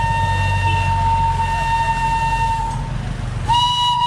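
Steam whistle of a Darjeeling Himalayan Railway steam locomotive, one long steady high note that breaks off briefly near the end and sounds again. Under it, a low engine rumble that stops about three and a half seconds in.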